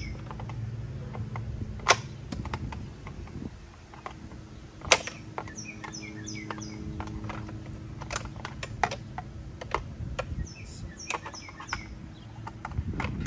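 Socket wrench and hand tools clicking and knocking irregularly as bolts are tightened down. A bird chirps short runs of falling notes a few times, over a low steady hum.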